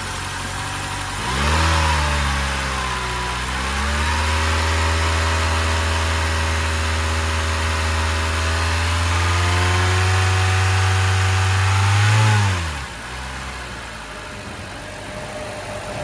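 Honda four-cylinder engine, cold-started, idling and then revved by hand at the throttle: a short blip about a second and a half in, then revs held steadily raised for about eight seconds before falling back to idle about three-quarters of the way through.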